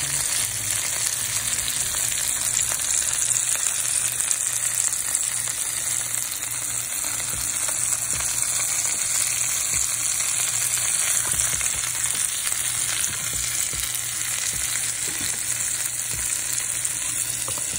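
Chicken breasts searing in butter in a skillet over fairly high heat: a steady frying sizzle with fine crackling spatters throughout.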